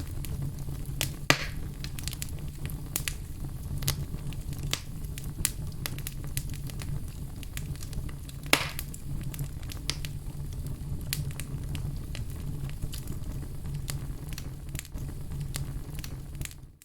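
Wood fire in a fireplace crackling over a low steady rumble, with frequent sharp snaps and two louder pops, one about a second in and one about eight and a half seconds in. It fades out at the very end.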